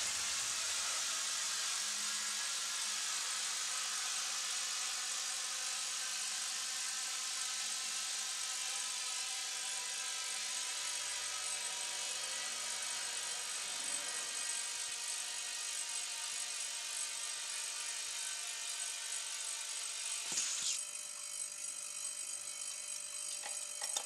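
Compressed air rushing steadily through a coiled air hose into an exercise ball from a homemade compressor built on an old refrigerator compressor. About 20 seconds in, the flow cuts off with a sharp click, leaving a fainter steady hum.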